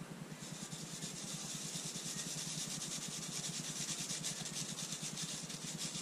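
Copper-oxide blue star composition powder being sifted through a small wire-mesh kitchen sieve, giving a rapid, rhythmic scratchy hiss of powder on mesh. It starts about half a second in and stops at the end.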